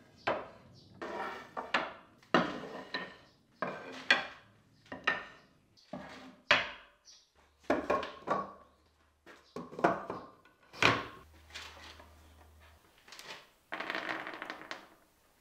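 Wooden boards and slats being set down and shifted on a wooden workbench: a dozen or so separate hollow knocks and clacks. Near the end comes a short rattle of small hard plastic parts tipped out onto the bench.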